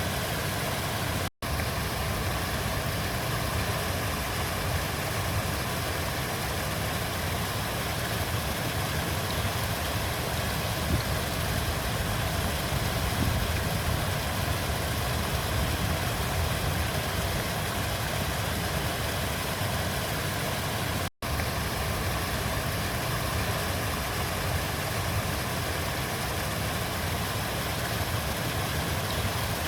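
River water flowing steadily in an even rush, dropping out for an instant twice, about a second in and again about twenty-one seconds in.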